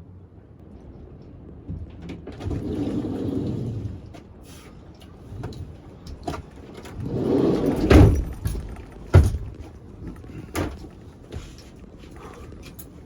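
Bed boards being shifted about and knocked: two spells of scraping and rustling, with several sharp knocks, the loudest about eight seconds in.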